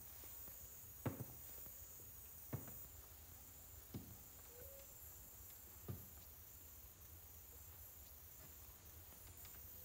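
Near silence: faint room tone with a low hum and a thin high hiss, broken by four soft knocks or clicks spaced about a second and a half apart.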